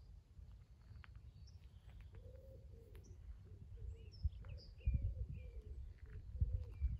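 Birds calling and chirping outdoors, with short high chirps coming in about halfway through, over a steady low rumble of wind on the microphone. Irregular low thumps of walking footsteps grow louder in the second half.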